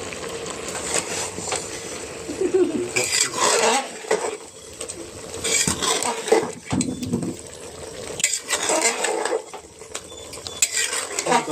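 Metal spoon stirring mutton being fried in a pressure cooker, scraping against the pot in several separate bursts.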